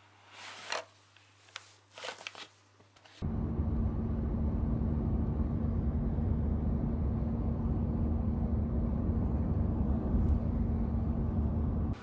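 Brief, irregular rustling of cloth and a canvas tote bag as things inside are handled. About three seconds in this cuts abruptly to the steady low rumble of a car driving on a highway, heard from inside the cabin, with a steady hum running under it.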